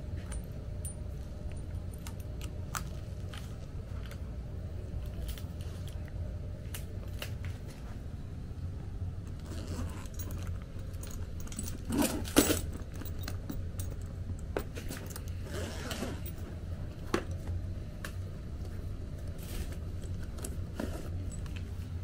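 Scattered small clicks and clinks of HVAC test instruments being handled: probe clips, leads and a meter knocked together. The loudest clatter comes about twelve seconds in. A steady low hum runs underneath.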